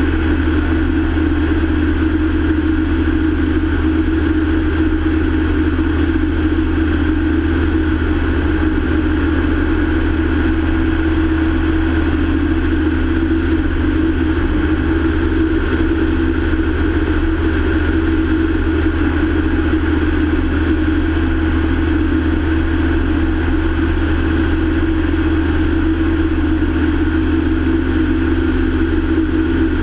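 Small propeller aircraft's engine and propeller droning steadily in level cruise flight, with no change in power.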